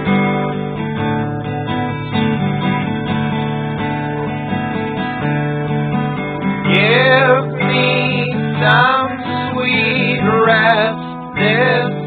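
Music: a strummed acoustic guitar, joined a little past halfway by a singing voice with a wavering pitch.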